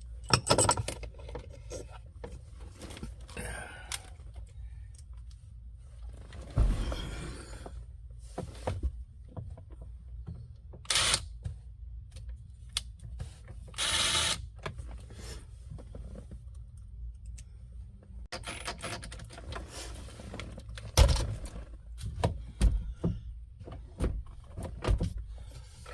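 Hands and tools working on a car's steering column: scattered clicks, knocks and clunks of parts and screws, with a few short rasping noises and a burst of louder knocks near the end.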